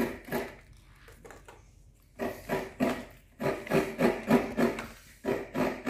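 Coconut half scraped against a wooden hand coconut grater: a rasping stroke at the start, a pause, then from about two seconds in a run of rhythmic scraping strokes, about three a second.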